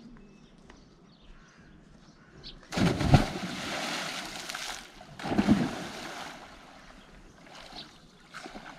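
Two people plunging off a footbridge into a river: a loud splash a little under three seconds in and a second one about two and a half seconds later, each followed by spray hissing back onto the water.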